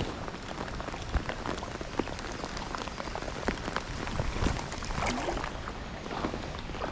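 Water splashing and dripping: many small, irregular drips and ticks over a steady wash of noise.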